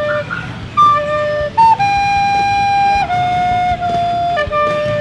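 Plastic soprano recorder playing a slow tune of single held notes, one after another, stepping down in pitch through the last few seconds.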